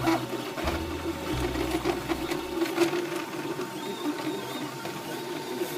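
FlashForge Creator Pro 3D printer printing: its stepper motors buzz in short, shifting tones as the extruder head shuttles back and forth, over a steady mechanical hum. The low motor tones stop about two and a half seconds in, leaving the hum and light clicking.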